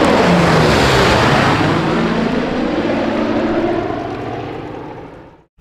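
Propeller aircraft flying past, a rough engine drone whose low note drops slightly as the sound fades away over about five seconds.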